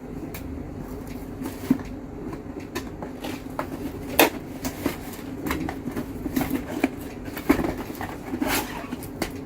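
A motherboard's cardboard box and packaging being opened and handled: irregular rustles, taps and knocks, the sharpest about four seconds in and again near the end.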